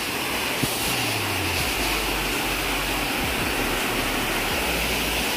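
Small waterfall pouring into a shallow rock pool: a steady rushing of falling water.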